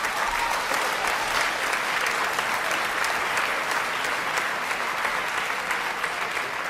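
Live audience applauding after a punchline: dense, steady clapping.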